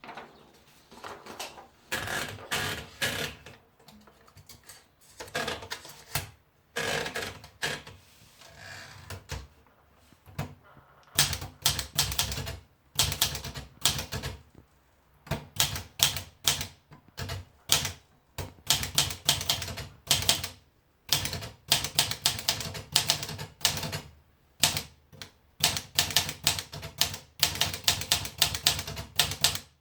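PMC Elite 44 manual typewriter being typed on: runs of sharp keystroke clacks in bursts with short pauses between them, softer and more spaced at first, then louder and faster about a third of the way in.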